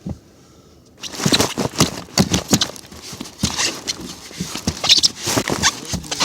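Dense, irregular rustling and crackling close to the microphone, starting about a second in after a brief quiet.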